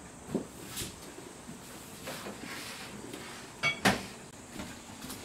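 Kitchen handling noises: a few soft knocks, then about four seconds in a short ringing clink and a sharp knock as dishware or cookware is handled at the counter.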